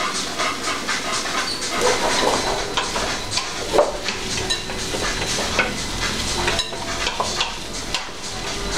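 Potato pancakes sizzling in oil in a frying pan, with a utensil scraping and clinking irregularly against a pan as minced meat and vegetables are stirred.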